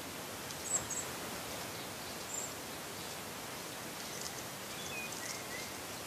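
Steady outdoor hiss from a trail camera's low-sensitivity microphone, its audio boosted, with a few faint, short bird chirps.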